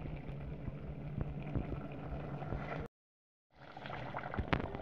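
Chicken stew simmering in an aluminium pot, a steady noisy bubbling over a constant low hum. The sound drops out completely for about half a second, then a metal ladle knocks in the pot near the end.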